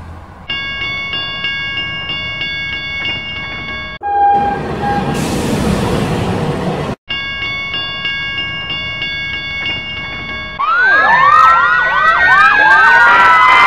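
A railway level-crossing warning bell rings in rapid repeating strokes. It is broken for about three seconds by a train rushing past with two short horn toots, then rings again. Near the end several fire-engine sirens start wailing over one another, the loudest part.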